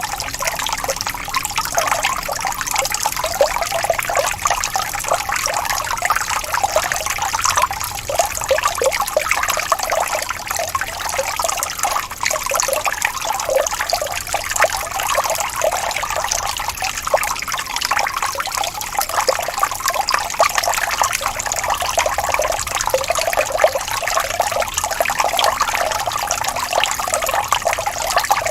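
Gently rippling stream of running water: a steady, bubbling trickle with little deep rumble.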